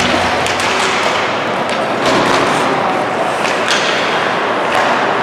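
Ice hockey rink noise: a steady wash of crowd and skating noise with scattered sharp knocks of sticks, puck and boards, several a second at the busiest.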